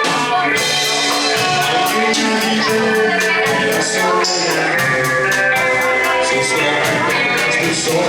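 Rock band playing a song with a steady beat, and a voice singing over it.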